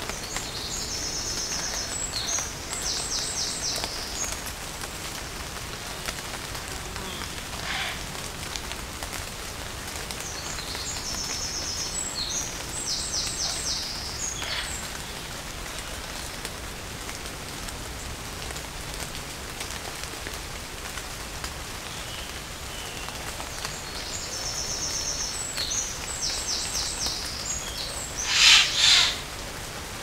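Light rain falling steadily, with a songbird singing the same high, trilled phrase three times, roughly ten seconds apart. Near the end there is a brief, loud double noise close by.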